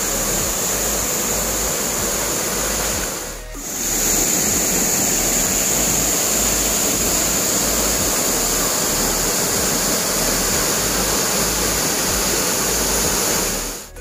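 A waterfall about 15 metres high pouring into its plunge pool, heard as a steady rush of falling water. The sound dips briefly about three and a half seconds in.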